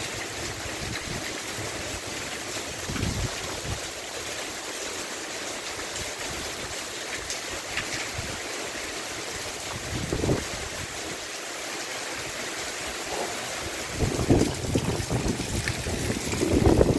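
Heavy rain falling as a steady hiss. Gusts of wind rumble on the microphone about three seconds in and again around ten seconds, then grow louder and rougher near the end.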